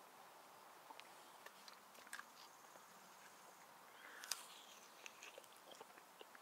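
Near silence with faint scattered clicks and rustles of a person shifting about, and one sharper click about four seconds in.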